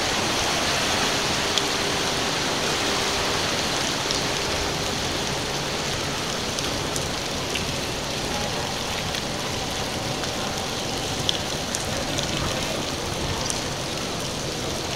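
Rain in a storm, heard as a steady even hiss, with a few faint sharp ticks scattered through.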